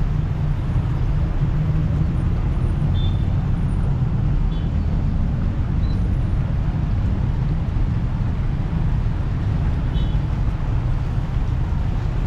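Steady low rumble of city street traffic, with a few faint, brief high squeaks.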